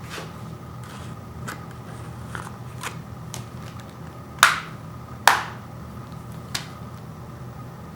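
Plastic Blu-ray case being handled: scattered light clicks, then two sharp snaps a little under a second apart about halfway through, followed by one smaller click.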